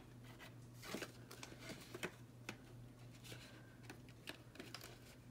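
Faint, sparse rustles and light clicks of paper banknotes being handled and slid into a clear plastic binder envelope, over a low steady hum.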